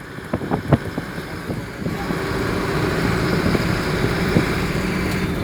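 A few sharp knocks in the first second, then a steady vehicle rumble that grows louder about two seconds in and holds.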